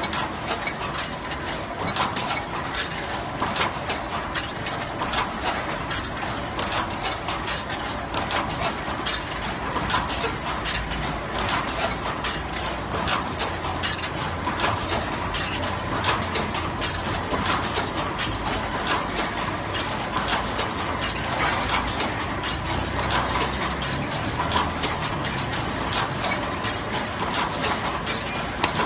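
Automatic wire mesh welding machine running: a continuous dense clatter of rapid clicks and knocks from the welding head and mesh feed, with a faint steady whine underneath.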